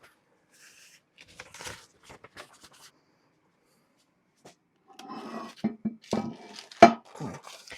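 Metal parts and tools knocking and clattering as they are handled during a workpiece setup. A few faint clicks come first, then a busy run of knocks in the second half, with one sharp knock near the end the loudest.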